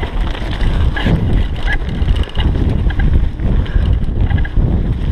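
Wind buffeting the microphone over the rumble of a mountain bike riding fast down a rough, leaf-covered dirt trail, with frequent small knocks and rattles from the bike.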